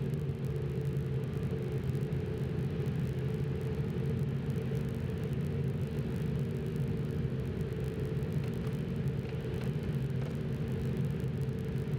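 A pack of superbike engines running together at low, steady revs as the field rolls off for the warm-up lap, with no sharp revving.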